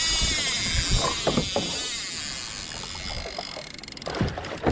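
Water splashing and sloshing around a fishing kayak, with a steady hiss and a few short knocks or splashes about a second in and again near the end.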